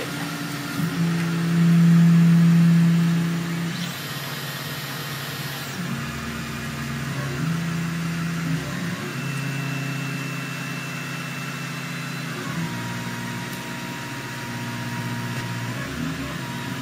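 RepRap Pro Ormerod 3D printer's stepper motors whining as the machine moves its axes at the start of a print: a run of steady tones that jump to a new pitch every second or few as each move starts and stops, loudest about one to four seconds in.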